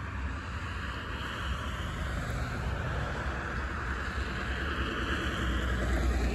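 EMD SD60 diesel locomotive's 16-cylinder 710 engine running with a steady low rumble, growing a little louder near the end, under a hiss that slowly sweeps up and down in pitch.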